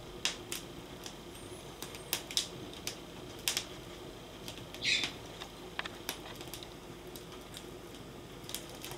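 Irregular sharp clicks and ticks, roughly one or two a second, over a faint steady hum, with a short hissy burst about halfway through.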